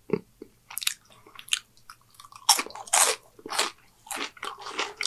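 A person chewing seasoned french fries dipped in sauce, close to the microphone: a run of short, irregular chewing sounds.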